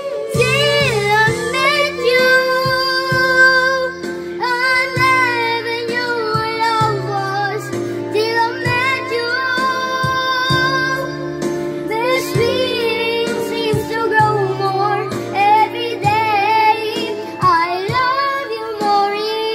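A boy singing a slow ballad into a handheld microphone over a karaoke backing track, holding long notes with vibrato above steady sustained chords.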